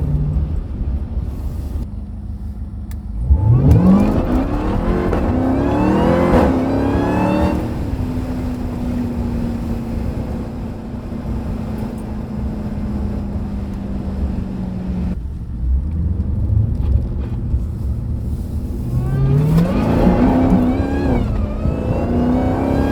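Jeep Grand Cherokee Trackhawk's supercharged 6.2-litre V8 under hard acceleration, its engine note and high supercharger whine rising together with the revs. This happens twice, about three seconds in and again near the end, with a steady engine tone while cruising in between.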